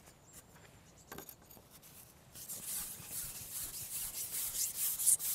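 Carbon fishing pole being shipped out hand over hand, the pole rasping and rubbing through the hands in a run of repeated strokes that starts about two and a half seconds in. Before that there is a single light click about a second in.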